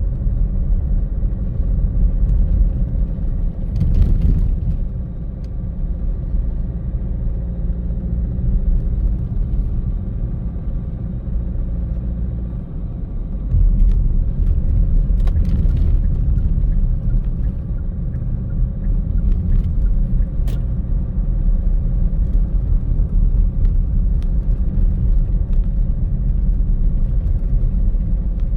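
Car driving, with a steady low rumble of road and engine noise and a faint steady hum. A few light knocks are heard, and the rumble steps up louder about halfway through.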